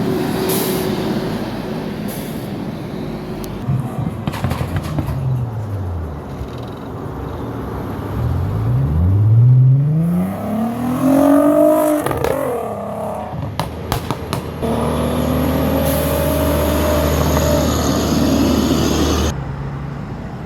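Road traffic: motor vehicles driving past. One engine rises steeply in pitch as it accelerates about nine to eleven seconds in, the loudest part. A steady engine drone follows and cuts off suddenly near the end.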